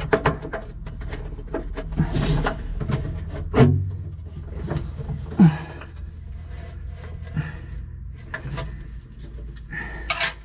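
Scattered clicks, knocks and rubbing of metal fittings and parts being handled and fitted by hand in a cramped space, with a couple of short grunts about a third and halfway in.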